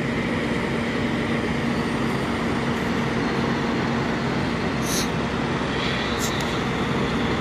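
Steady drone of idling semi trucks parked in a row, with a constant low hum under it. A few short, high-pitched rustles come in about five and six seconds in.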